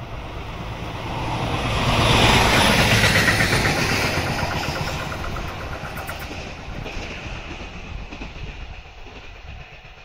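A train rolling past on the rails, its wheels clicking over the rail joints. The sound swells to its loudest about two seconds in, then fades away as the train moves off.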